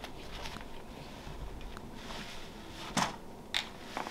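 Light handling noise of small plastic game pieces, with a few sharp clicks near the end, the first of them the loudest.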